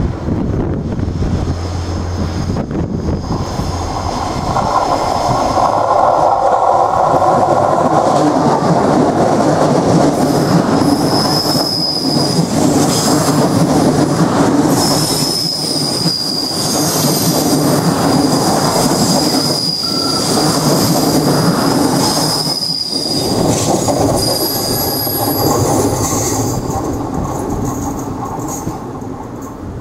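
Irish Rail 29000 class diesel multiple unit passing close by, a loud, continuous rumble of engines and wheels that swells and then eases off. A steady high-pitched wheel squeal comes in about a third of the way through and holds for most of the pass.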